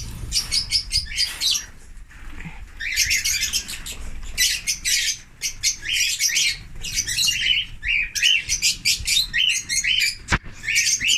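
A flock of lovebirds and cockatiels chirping, with dense, rapid, shrill calls overlapping without a break. A single sharp knock sounds about ten seconds in.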